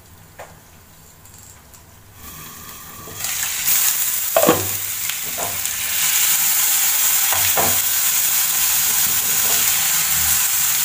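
Ayala (Indian mackerel) shallow-frying in oil in a non-stick pan. The sizzling is faint and muffled under a glass lid at first, then from about three seconds in it is a loud, steady, high hiss. A few short knocks sound over it.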